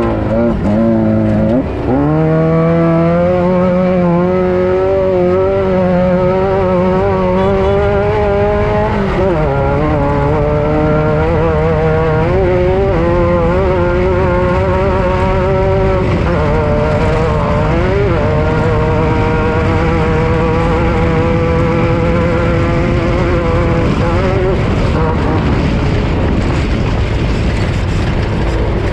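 An off-road race vehicle's engine running hard, its pitch dipping and climbing back several times with throttle and gear changes, over a steady rush of tyre and chassis noise.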